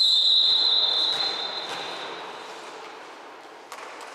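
Referee's whistle blowing one long, steady high blast that fades away over about two seconds in the gym hall: the referee's signal for play to restart with the serve.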